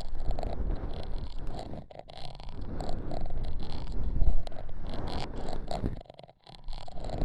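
ASMR trigger sounds: dense, uneven scratching and rubbing, with a short break about six seconds in.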